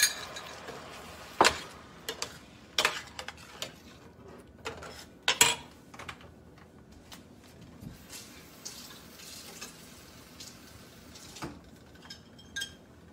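Long metal spoon knocking and scraping against a stainless-steel skillet while stirring potatoes in thin spiced buttermilk, with scattered sharp clinks, the loudest about one and a half seconds in and around five and a half seconds in.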